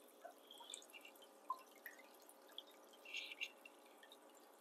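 Faint, scattered drips and small splashes of aquarium water, a brief cluster of them a little past three seconds in, over a faint steady hum.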